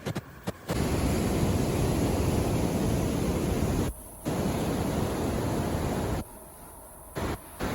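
Wind buffeting the microphone: a loud, rumbling rush of noise that cuts in and out abruptly several times.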